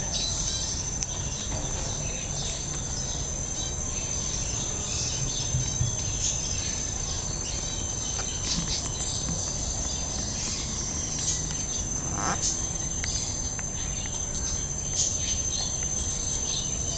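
Insects trilling in one steady, high continuous tone, with scattered short chirps and clicks over a low rumble of ambient noise.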